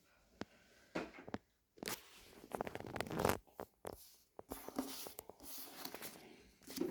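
Crinkling and tearing of a foil trading-card packet and the cards inside being handled, in a run of short rustles and clicks.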